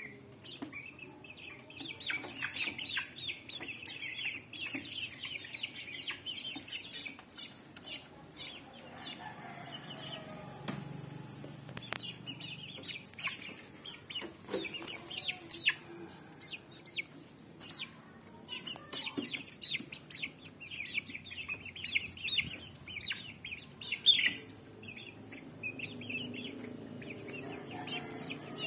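A flock of young Rhode Island Red and black Australorp chickens peeping and clucking in quick runs of short, high calls, with a couple of brief lulls. There are a few sharp knocks, the loudest a little before the end.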